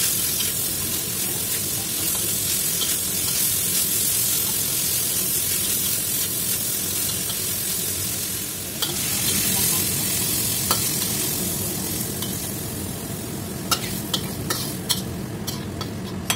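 Stir-fry of chicken, tofu and vegetables sizzling in a wok while a spatula stirs and tosses it. Near the end the sizzle dies down and a metal spatula clicks and scrapes against the wok as the food is tipped out onto a plate.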